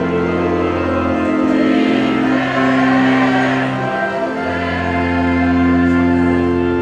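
Church congregation singing a hymn together over long held instrumental chords; the chord changes about a second and a half in and again past four seconds.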